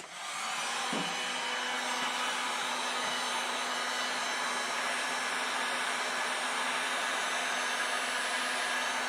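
Electric heat gun starting up and then blowing steadily, a constant fan rush with a low hum, while heating the car's side trim to soften it for removal.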